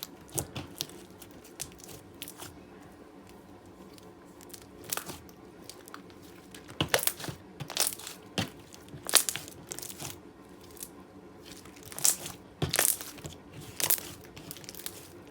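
Gold metallic slime being pressed and stretched by hand, giving irregular sharp clicks and pops. They come in scattered clusters that grow louder in the second half.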